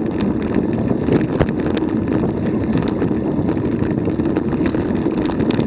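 Steady rush of wind on the microphone mixed with a bike's tyres rolling fast over a dirt trail, with a couple of sharp clicks from the bike jolting over bumps.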